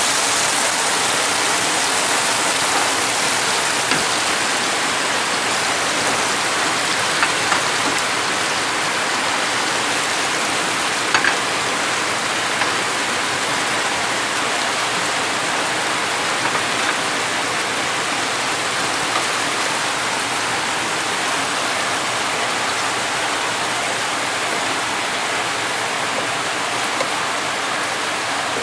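Food sizzling in hot oil in a pan, a steady dense hiss with a few small pops and crackles.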